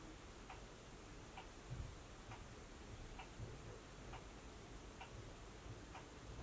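Clock ticking softly and evenly, a tick a little under once a second, with a few faint low thuds underneath.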